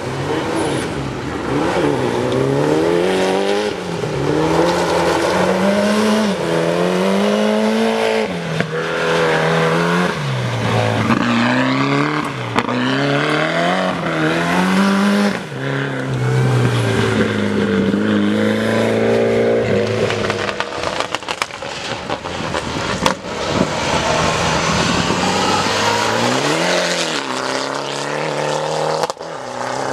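Mitsubishi Lancer Evolution rally cars with turbocharged four-cylinder engines driven hard on gravel, the engine note climbing and dropping over and over as they run through the gears. A few sharp pops come about two-thirds of the way through.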